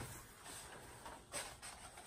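Faint rustling of a diamond painting canvas with its plastic cover film as it is smoothed flat by hand, with one brief louder rustle past the halfway point.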